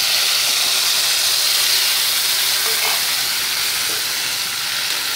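Loud sizzling of tamarind extract hitting a kadai of hot sesame oil and tempering spices, a steady hiss that eases slightly towards the end.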